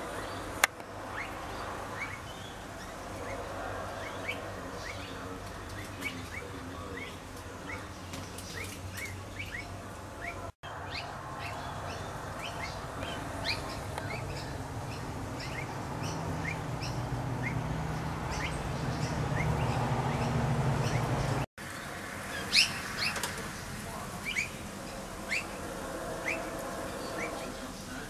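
Birds chirping: a steady run of short, high chirps that fall sharply in pitch, about two a second, over a low background rumble that swells in the middle.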